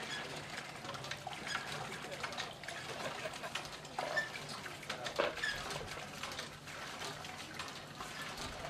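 A lever-action hand water pump being worked, with water pouring from its spout into a clay pot, and birds chirping.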